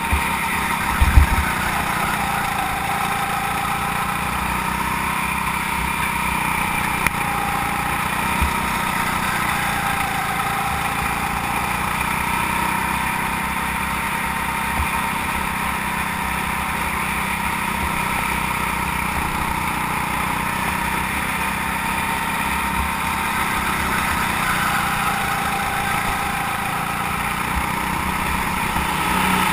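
Go-kart engine running steadily, recorded on board the kart, its pitch rising and falling gently as the kart goes through corners. A few short low thumps, the loudest about a second in.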